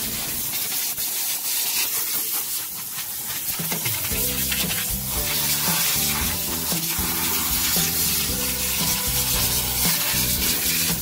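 Steady hiss of a self-service car wash's hand-held cleaning nozzle working over the car's seats and console. Background music with a bass line comes in about four seconds in.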